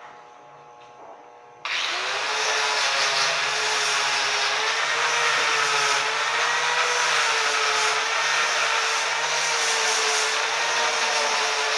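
Handheld angle grinder switched on about two seconds in, then running steadily as its spinning disc is worked against a stainless steel frame to buff it. It makes a loud, steady motor whine that wavers slightly as the disc is pressed on.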